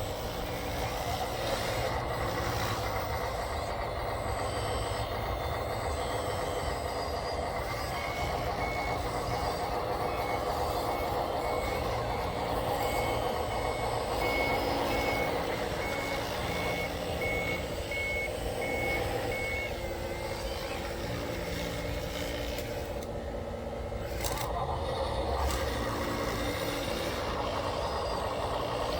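Radio-controlled construction machines running with a steady mechanical whine. A reversing beeper sounds about once a second for roughly twelve seconds in the middle, then stops.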